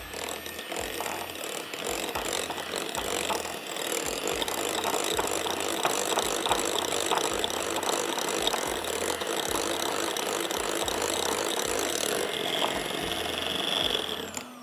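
Electric hand mixer running steadily, its beaters whisking an egg into creamed butter and sugar in a glass bowl, with scattered clicks. The tone changes about twelve seconds in, and the motor winds down at the very end.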